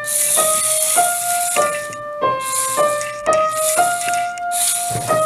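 Background music: a piano melody of single notes, one about every half second, over a hissing percussion layer.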